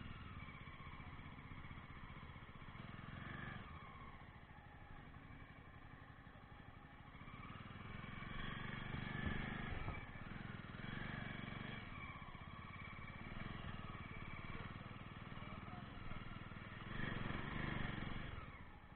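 Jawa 42 motorcycle's single-cylinder engine running while being ridden, its note swelling and easing a little with the throttle.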